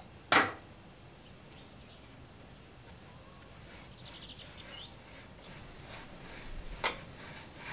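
Two sharp knocks over quiet outdoor ambience, a loud one just under half a second in and a smaller one near the end, with a few faint high bird chirps about four seconds in.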